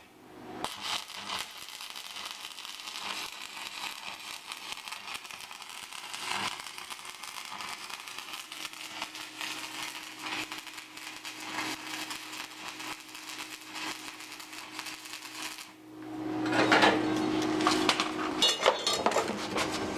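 Stick-welding arc from a home-built AVT-200 inverter welder, crackling steadily for most of the stretch. About sixteen seconds in the arc stops and louder metallic clatter follows.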